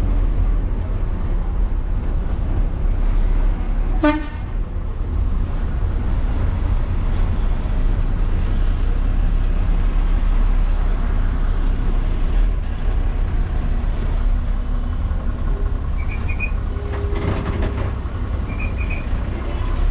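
Bus engine running with steady cabin rumble, heard from inside a moving bus, with a short horn toot about four seconds in.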